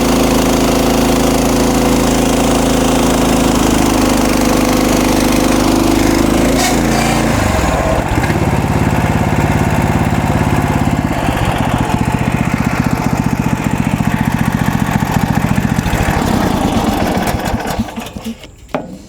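MechMaxx SM32 band sawmill's gasoline engine running loud under load. Its speed drops about seven seconds in, it runs on lower with a rapid even pulsing, then dies away near the end. The drive belt is overheating and smoking hot.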